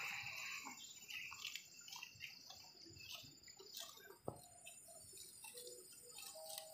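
Water buffalo cropping grass: scattered short tearing and crunching sounds at a low level, with one sharp click about four seconds in.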